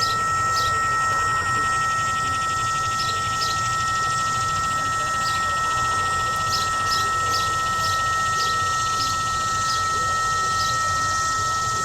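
Whelen WPS-3016 electronic siren giving out a steady buzz of two fixed tones instead of its warning sweep. This is the sign of the siren malfunctioning, which the recordist guesses is because it could not rotate to its set position. Short high chirps come through now and then.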